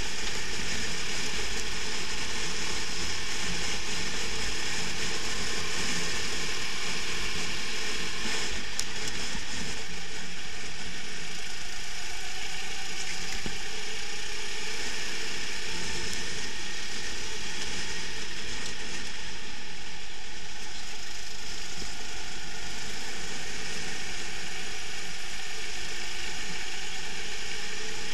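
Onboard sound of a rental go-kart at racing speed: its engine running steadily, heard as a continuous mechanical rattle and buzz from the vibrating chassis, with no big rises or drops.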